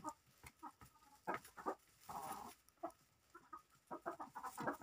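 Domestic hens clucking quietly in short, scattered calls, with brief rustles as they scratch through fresh straw bedding.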